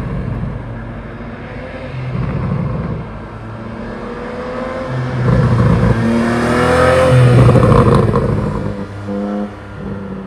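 2022 Porsche 718 Boxster GTS 4.0's naturally aspirated flat-six running on an ECU pop-and-crackle tune, its engine speed rising and falling. The loudest part is a rising run about five to eight seconds in, with a few sharp crackles from the exhaust as the revs drop away.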